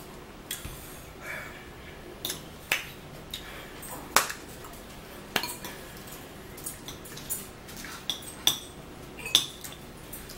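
Scattered sharp clicks and clinks of tableware handled while two people eat and drink a light snack, about two a second at irregular spacing.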